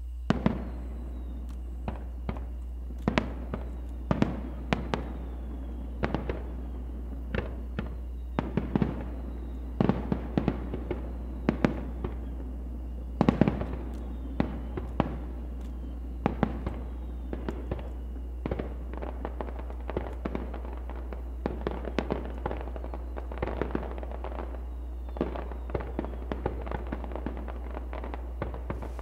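Aerial fireworks shells bursting, dozens of booms and cracks in quick, irregular succession, each with a short echo trailing after it.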